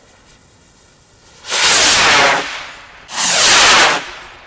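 Two firework rockets launching one after the other, each a loud hissing whoosh about a second long that sweeps downward as it climbs away.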